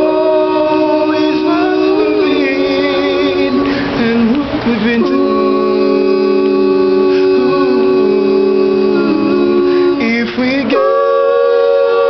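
Male vocal group singing a cappella in close harmony, holding long sustained chords. The singing breaks briefly for a chord change about four seconds in and again near the end.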